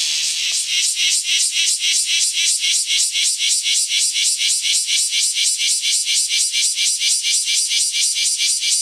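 Bear cicada (Cryptotympana facialis) song, loud and high-pitched. A steady hiss breaks, shortly after the start, into the species' even pulsing 'shawa-shawa' of about five pulses a second.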